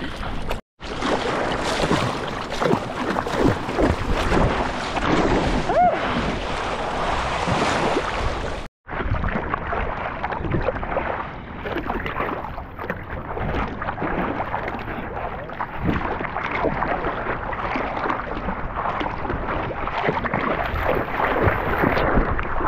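Seawater moving and wind blowing on the microphone out in the surf, a rough, steady noise. It cuts out abruptly twice, about a second in and near nine seconds, and sounds duller after the second cut.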